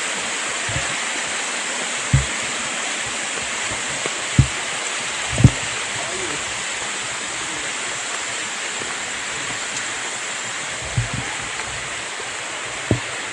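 Waterfall rushing steadily, with a few short low thumps mixed in.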